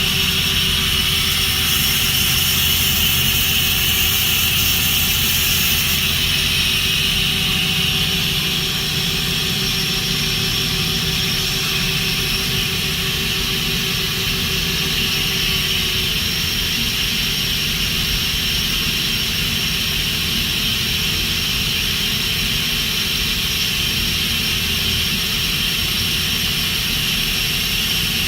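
Mori Seiki NT4300 CNC turning center running under power: a steady mechanical hum and hiss with a few steady whining tones. The hiss eases about eight seconds in, and one tone drops out about halfway through.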